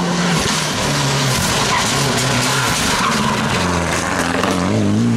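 Mitsubishi Lancer Evolution X rally car taking a tight hairpin. The engine note drops in steps as it slows and shifts down, the tyres skid on the tarmac, and near the end the engine revs rise as it powers out of the corner.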